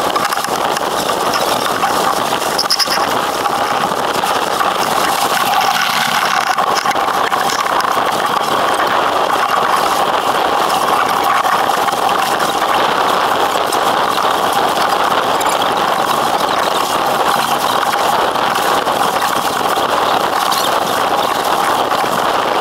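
Steady rush of wind and water along the hull of an Impala 28 keelboat under sail, an even hiss with no change in level.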